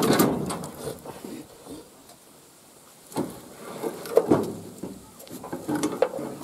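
Heavy metal parts knocking and scraping as a Nissan SD22 diesel's cylinder head is worked loose and lifted from the block. A loud clatter opens it and fades within about a second, followed by separate knocks about three, four and six seconds in.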